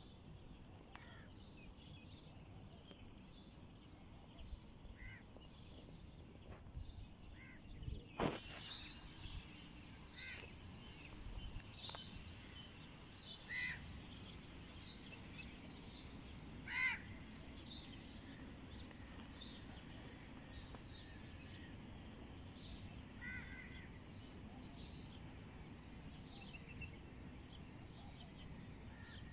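Small birds chirping over and over in short high calls, faintly, over a low steady background noise, with one sharp click about eight seconds in.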